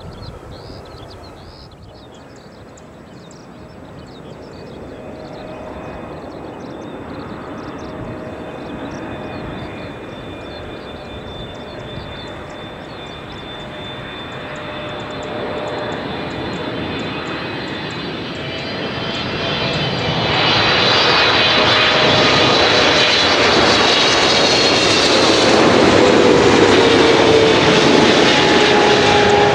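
Boeing 777-300ER's twin GE90 turbofans on final approach, growing louder over some twenty seconds until the airliner is close by, with a high fan whine. Near the end the engine tones drop in pitch as it passes.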